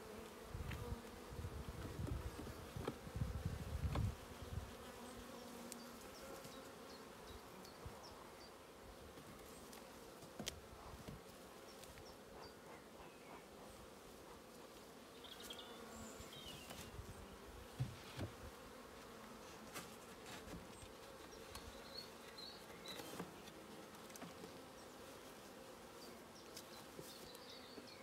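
Honeybees buzzing in a steady, faint hum over an open hive. In the first few seconds there is low rumbling handling noise, and a few light knocks follow as wooden frames are moved.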